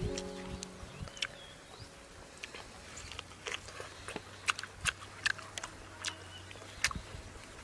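A person chewing a mouthful of cooked pork, with irregular sharp clicks of lips and teeth.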